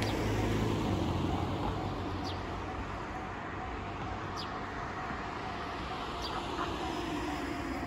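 Road traffic: cars passing on an adjacent street, a steady rumble of tyres and engines. A few short, high chirps come through about two, four and six seconds in.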